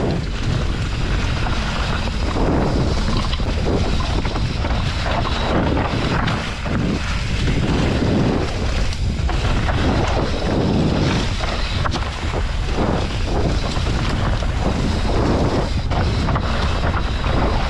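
Steady wind rush on the camera microphone mixed with the rumble and rattle of a mountain bike riding fast down a dirt trail.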